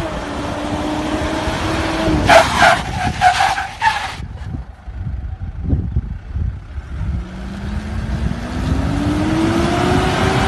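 Mitsubishi Pajero SUV's engine running hard through sharp turns, with a loud burst of tyre squeal from about two to four seconds in. After a quieter stretch, the engine note rises steadily as it accelerates near the end.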